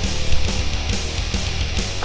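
Background heavy-metal music with distorted guitars and a steady driving beat.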